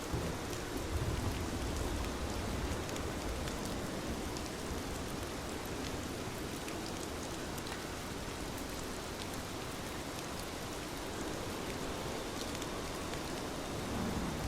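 Steady rain falling, an even hiss with scattered individual drop ticks, and a brief low rumble about a second in.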